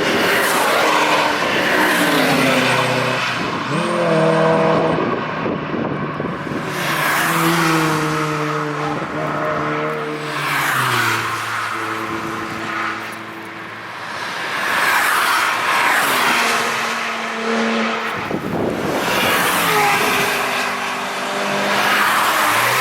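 Several cars passing one after another at speed, engines running hard, each engine note dropping in pitch as the car goes by.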